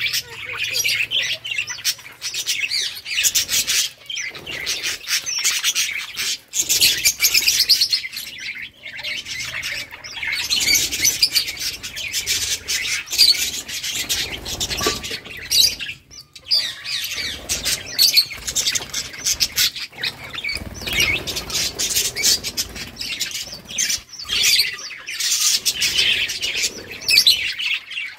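A flock of budgerigars chirping and chattering continuously in rapid, high, overlapping calls, with a few brief lulls.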